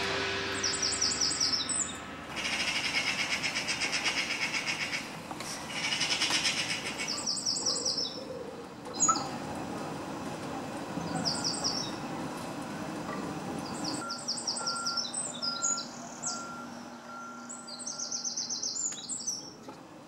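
Eurasian wren singing: short bursts of rapid, high trilled notes, repeated several times with pauses between them.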